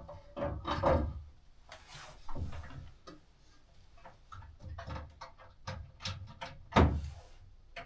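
Scattered clicks, taps and knocks of hands working a loose ceiling light fixture, with one louder knock near the end.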